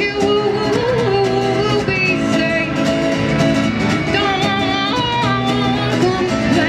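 A woman singing into a microphone while strumming an acoustic guitar, holding long sung notes over a steady strum.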